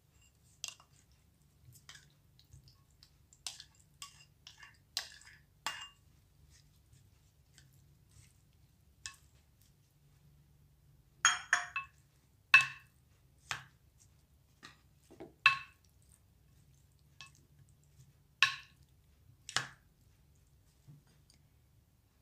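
A spoon clinking and knocking against a ceramic bowl while stirring pineapple chunks into diced chicken, in scattered strokes that are loudest in a run of sharp clinks in the second half.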